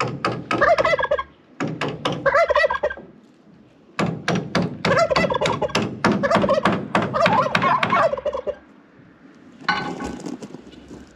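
Tom turkey gobbling in three loud, rapid, rattling bouts, the last and longest lasting about four seconds. A shorter call follows near the end.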